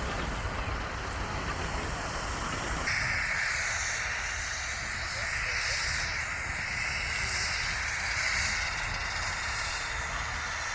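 Steam hissing from a Howard steam ploughing engine over a low rumble. About three seconds in, the sound changes abruptly and a steady hiss comes in, rising and falling slightly in strength.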